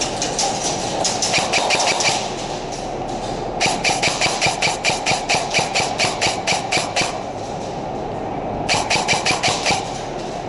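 Airsoft electric guns firing fully automatic, in three bursts of rapid, evenly spaced cracks; the longest lasts about three seconds in the middle.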